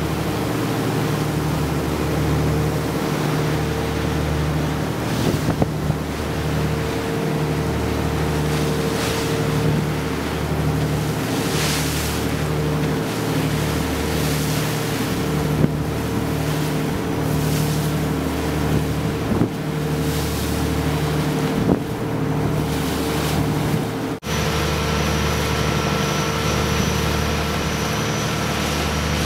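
A boat's engine running steadily at cruising speed, a low drone that swells and fades in a slow rhythm, with wind gusting on the microphone and water rushing past the hull.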